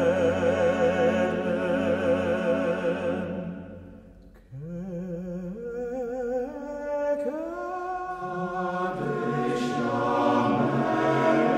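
A cantor and a men's choir singing a cappella in Hebrew. A full sung chord with vibrato fades away about four seconds in. The cantor then sings on as the choir's voices come back in one after another, building into a full chord that swells near the end.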